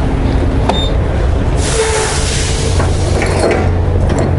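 Diesel pump nozzle clicking and clinking as it is handled and set into a semi truck's fuel tank, over a steady low diesel engine rumble. A burst of hiss comes about one and a half seconds in and lasts about a second.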